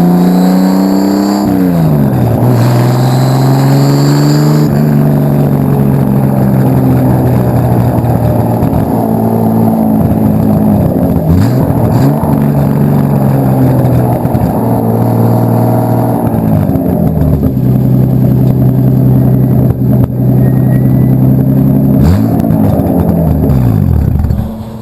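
Nissan Skyline R32's RB25 Neo turbocharged straight-six running loud through a 3.5-inch stainless straight-through exhaust. The revs climb at first, drop about a second and a half in, then are held steady for long stretches, with a few brief dips and recoveries in the middle and near the end.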